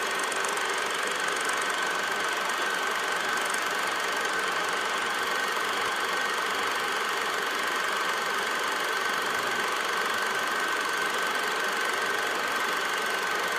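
Cine film projector running: a steady mechanical whirr and rattle with a constant high whine, beginning to fade near the end.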